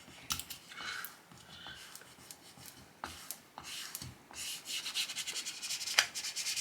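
Film screen protector being rubbed down on a phone screen with an applicator tool: scraping strokes, sparse at first and then quicker and closer together in the second half, with one sharp click about six seconds in.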